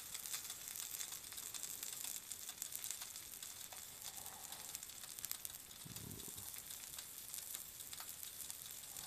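Thawed nori-topped chicken karaage sizzling softly on an electric hot plate: a steady hiss with faint scattered crackles.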